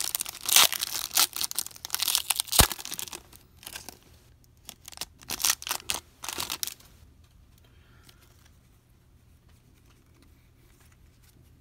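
Wrapper of a 2013 Prestige football card pack being torn open and crinkled in the hands. It crackles in a run of bursts over the first three and a half seconds, with a sharp click about two and a half seconds in, then crinkles again about five to six and a half seconds in.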